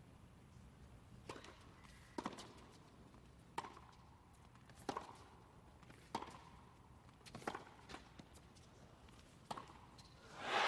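Tennis rally: a ball struck back and forth by racquets, with sharp pops of racquet hits and court bounces about every second and a bit over a steady low hum. Crowd noise swells near the end as the point finishes.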